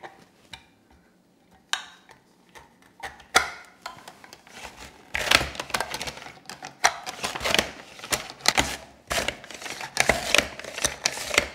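Celeriac being sliced on a mandoline slicer, pushed to and fro under its hand guard over the blade: a few knocks at first, then from about five seconds in a quick run of rasping slicing strokes, roughly two a second.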